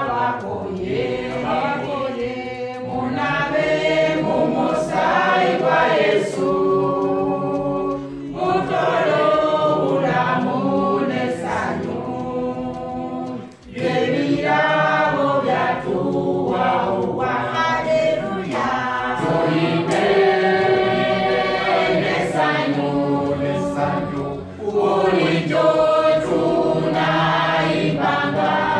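A group of voices singing a church song together, with short breaks between phrases and the longest break about halfway through.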